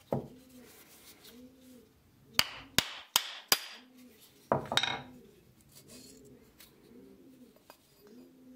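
About six sharp knocks of a hammer against an antique wooden hand plane, most of them bunched two to three seconds in, as the plane is struck to loosen its wedge and iron. A pigeon coos over and over in the background.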